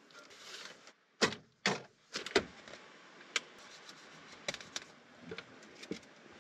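Clatter of things being handled and set down: a series of sharp knocks and clicks, the loudest about a second in and twice more over the next second and a half, with lighter taps after.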